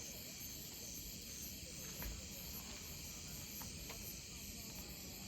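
Crickets chirping in a steady, evenly pulsing high-pitched chorus, with a couple of faint clicks.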